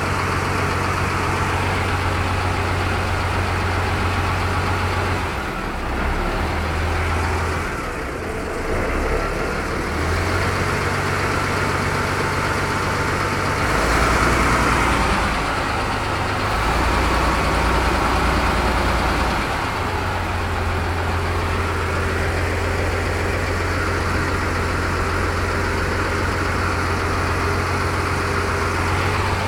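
A river ferry boat's engine running steadily, its low drone shifting in note a few times, over water rushing and splashing past the hull.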